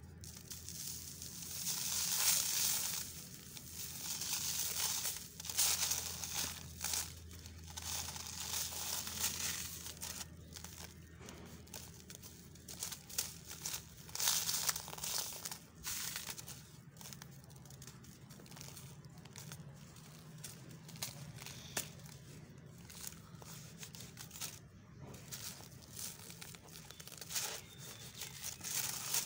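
Dry sand-cement mix crushed and crumbled by hand, gritty crunching and crackling in uneven swells, with grains trickling through the fingers onto a crinkling paper sheet.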